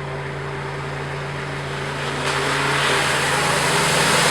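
Off-road 4x4's engine running at a steady pitch. About two seconds in, a broad rushing noise builds over it and the sound grows louder.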